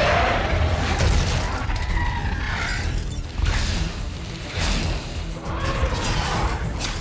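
Movie fight soundtrack: a dramatic score mixed with a series of heavy crashes and metallic mechanical clanks of a giant robot grappling a monster, over a constant deep rumble.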